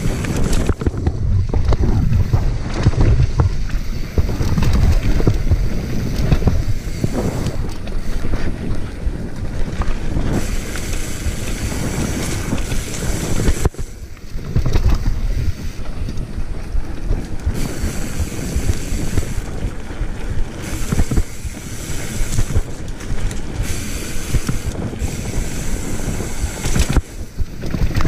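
Wind buffeting the microphone as a mountain bike descends a dirt singletrack, with tyres on the dirt and frequent knocks and rattles from the bike over bumps.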